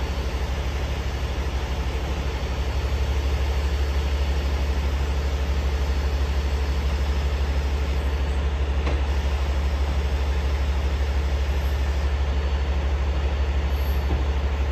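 Truck engine running steadily, a deep, even low drone.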